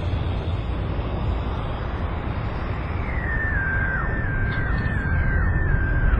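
Dark, rumbling horror-film sound-design drone. About halfway through, a high note joins it and repeats several times, each time sliding up and then stepping down.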